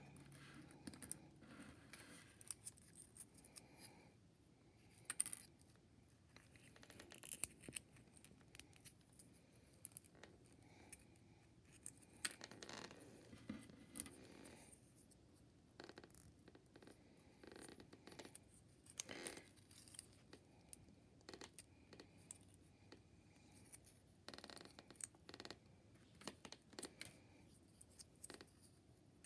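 Faint, scattered scratching and light clicks of a small cardboard paper-craft piece being folded and handled between the fingers.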